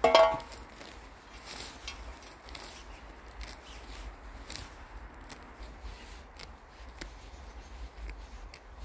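Dry grass and weeds rustling and tearing as they are pulled from the earth by hand, with scattered light clicks and scrapes from a small metal trowel. It opens with one brief, loud pitched sound, the loudest thing here.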